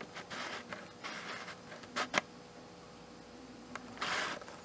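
Handling noise: soft rustles and light taps as the phone is held and moved in the hand, with two sharp taps about two seconds in and a brief rustle near the end.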